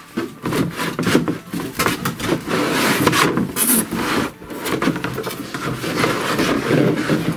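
Cardboard box being shifted and rummaged through, with continuous rubbing and scraping of cardboard and packed plastic toy-kitchen parts and many light knocks.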